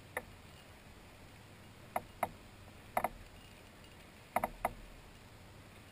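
Several short, sharp clicks, some in quick pairs, spaced about a second apart over a faint steady background.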